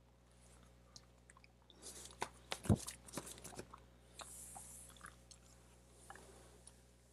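A person chewing a hard gumball, the mouth close to the microphone: a run of crunches and wet clicks from about two seconds in, the loudest in the middle, then a short hiss about four seconds in.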